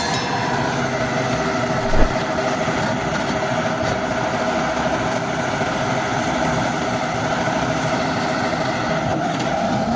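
An engine running steadily, with one sharp knock about two seconds in.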